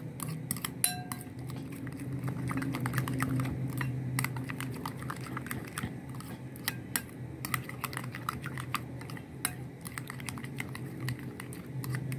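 Metal spoon clicking and scraping against a glass bowl in quick, irregular strokes while stirring a mayonnaise-and-ketchup sauce, over a low steady hum.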